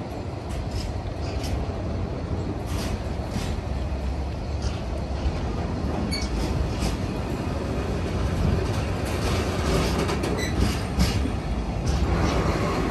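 Empty container flat wagons of a freight train rolling past: a steady low rumble of steel wheels on rail, broken by irregular metallic clanks and clicks.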